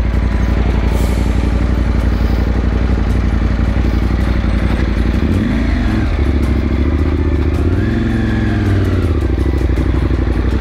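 KTM 790 Adventure's parallel-twin engine running as the motorcycle rides onto a rocky dirt track, with the revs rising and falling twice in the second half.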